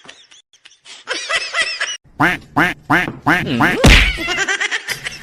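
A quick series of short, quack-like animal calls, each rising and falling in pitch, loudest in a run of about nine between two and four seconds in.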